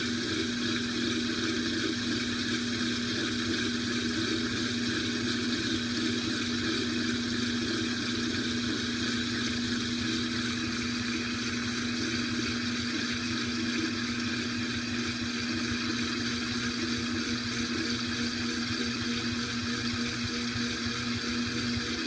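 2012 LG top-load washing machine spinning its drum at the low spin speed of the delicates cycle: a steady hum and whir of motor and drum, even in level and unchanging in pitch.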